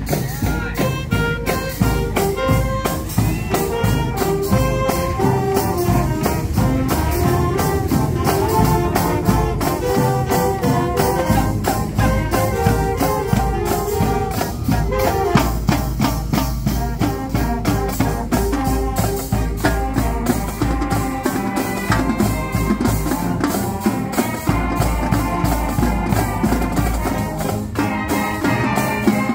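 High school marching band playing live: clarinets, flutes, saxophones and a sousaphone over a drumline of snare, tenor and bass drums, with a steady drum beat.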